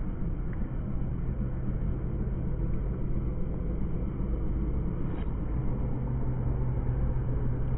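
Steady low rumble of a motor vehicle's engine running, with a steady low hum.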